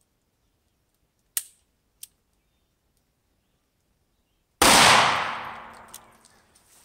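A single shot from a snubnose Ruger LCR revolver firing a 125-grain .38 Special +P round (Remington Golden Saber), about four and a half seconds in, loud and sudden, with an echo that dies away over about a second and a half. Two short clicks come earlier, the first about a second and a half in.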